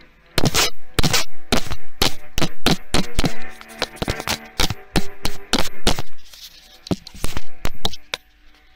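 Handling noise: fingers rubbing, tapping and knocking right on the recording phone or camera's microphone, a loud irregular run of clicks and scrapes that eases off for a moment near the end.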